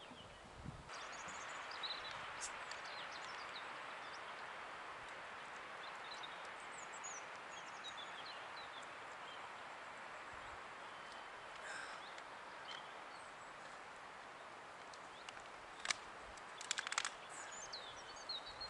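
Wind rushing through forest trees, coming in about a second in and blowing steadily, with small songbirds chirping and calling throughout. A few sharp clicks come near the end.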